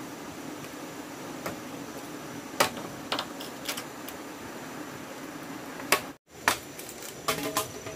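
A few sharp knocks and clicks at irregular intervals over a steady background hiss, with a tighter cluster of them near the end; the sound cuts out completely for a moment a little after six seconds.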